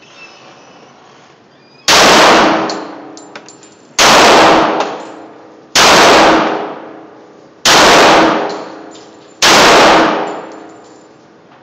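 Five handgun shots from a compact semi-automatic pistol, fired slowly about two seconds apart, each very loud and followed by about a second of reverberation off the concrete walls of an indoor range.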